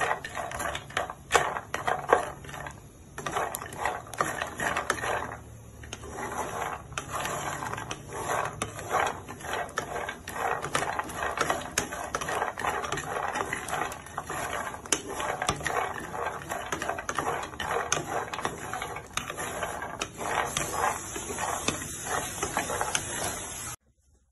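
Almonds and walnut pieces rattling and scraping in a nonstick frying pan as they are stirred with a wooden spatula while toasting: a busy run of irregular clicks and scrapes. It cuts off abruptly near the end.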